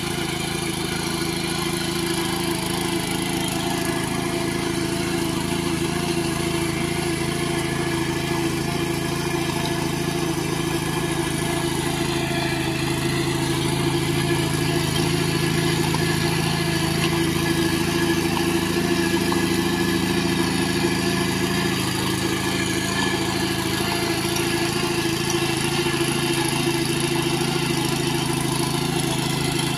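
Engine of a small walk-behind power tiller (power weeder) running steadily under load while it churns through a flooded paddy field. The sound swells slightly about halfway through.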